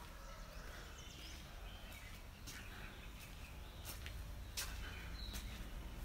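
Faint outdoor ambience with a steady low rumble, faint bird chirps, and a few sharp footsteps as someone walks up to and through a doorway.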